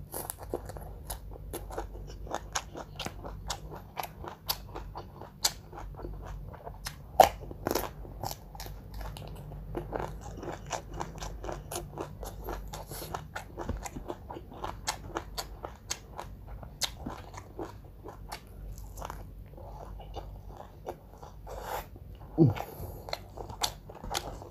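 Close-miked mukbang eating: people biting and chewing a smashed fried chicken meal with raw vegetables, making many irregular crisp crunches and smacking chews.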